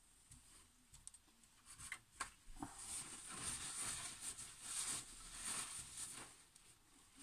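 Faint clicks and small knocks, then paper towel rustling and rubbing from about three seconds in as gloved hands covered in wet black paint are wiped.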